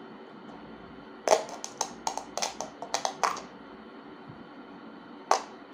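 A quick run of sharp clicks and pops, about a dozen in two seconds starting just over a second in, then one more near the end. This is a battery's leads being tapped on the voice-coil terminals of a horn driver unit whose diaphragm sits loose on the magnet. Each pulse of current makes the diaphragm jump, as a polarity check.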